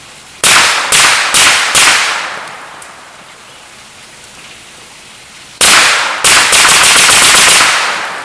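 Semi-automatic rifle with a Geissele Super Semi-Automatic Enhanced trigger fired rapidly: four shots in about a second and a half, a pause, then a faster string of shots near the end, each report ringing out behind it.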